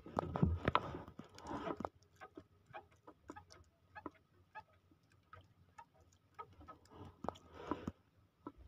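Fishing hand-line being pulled in and wound onto a hand spool: irregular clicks and scrapes of line and spool, with a louder rubbing scuffle in the first couple of seconds and another near the end.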